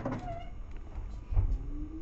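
Seibu 2000 series electric train heard from inside the car: a steady low running rumble with two heavy thumps of the wheels over rail joints, one at the start and one about a second and a half in. Near the end a motor whine starts rising in pitch as the train picks up speed.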